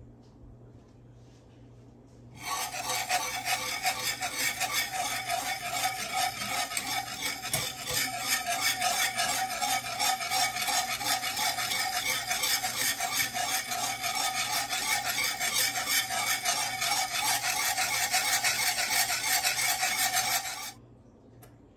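Wire whisk scraping rapidly and continuously round the bottom of a cast iron skillet, stirring boiling chocolate gravy as it thickens. The scraping starts about two seconds in and stops abruptly shortly before the end.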